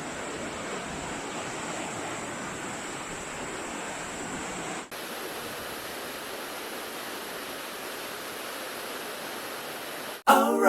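Steady rain falling, a continuous even hiss, with a brief break about five seconds in before it goes on. Music with singing starts just before the end.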